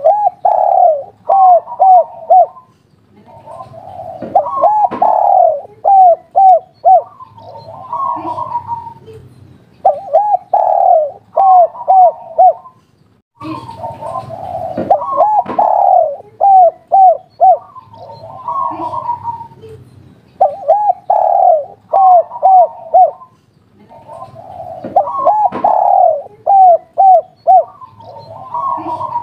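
Spotted dove cooing its song over and over, about every three to four seconds: each phrase is a longer coo followed by a quick run of short coos, the 'kuk 3' ending that keepers prize in a tekukur.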